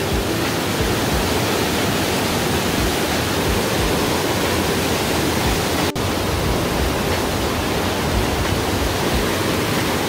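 Rain-swollen mountain stream rushing hard over a rocky cascade, a steady wash of white water. The sound breaks off for a split second about six seconds in, then runs on unchanged.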